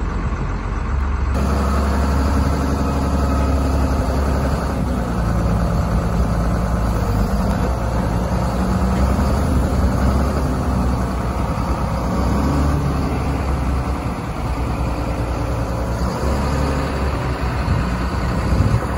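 John Deere 644H wheel loader's diesel engine running loud and revving as it lifts the front of a coach on its forks, the engine note rising and falling.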